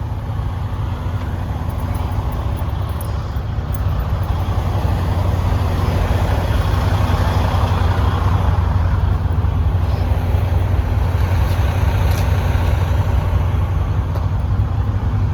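Semi truck's diesel engine idling with a steady low rumble, and a rushing noise that swells and fades around the middle.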